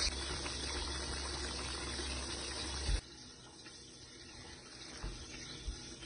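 Beef mechado stew bubbling in a cooking pot as a steady hiss. About halfway through there is a short knock, and the bubbling goes on more quietly after it.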